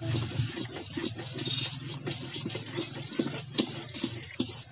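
Metal spoon beating thick cake batter in a steel bowl: quick, irregular scraping and clinking of spoon against bowl.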